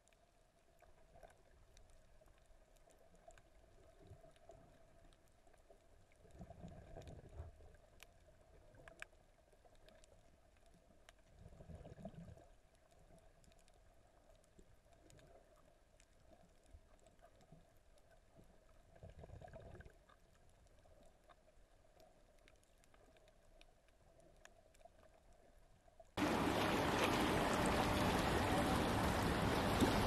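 Faint, muffled underwater sound through a submerged camera, a faint steady hum with three brief low rushes of water. About four seconds before the end it cuts to a loud, steady rushing noise above the surface.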